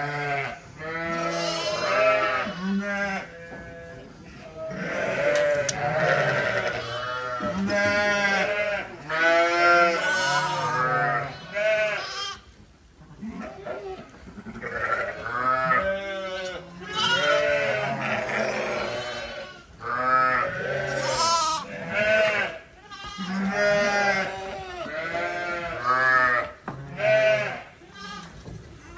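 Young lambs bleating again and again, many wavering calls overlapping one another, as they are held up and dosed with medicine. There is a short lull about halfway through.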